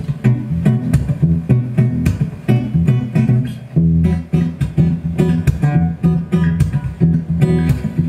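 Solo cutaway acoustic guitar played fingerstyle: a plucked melody over steady bass notes, with sharp note attacks.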